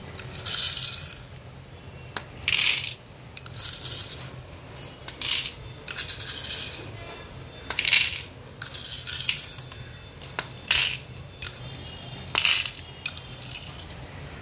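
Small white plastic pearl beads clattering as they are scooped with a plastic spoon from a plastic bowl and tipped into the compartments of a clear plastic organizer box, in about ten short rattling bursts, one every second or so.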